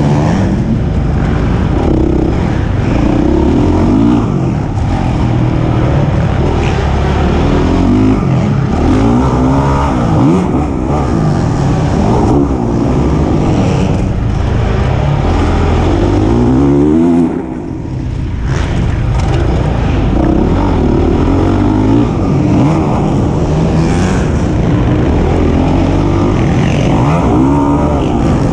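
Honda CRF450R single-cylinder four-stroke motocross engine heard onboard under hard riding, its pitch rising and falling over and over as the throttle is opened and closed through corners and jumps. The engine note drops away briefly about two-thirds of the way through before picking up again.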